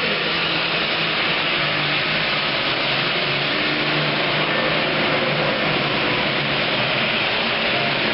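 Super Farm class pulling tractor's turbocharged diesel engine running wide open under load during a pull, loud and steady throughout.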